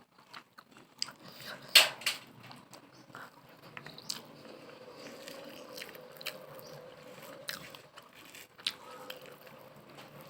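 A person chewing and smacking mouthfuls of rice close to the microphone, with scattered sharp mouth clicks, the loudest about two seconds in. A faint steady hum runs underneath from about four seconds in.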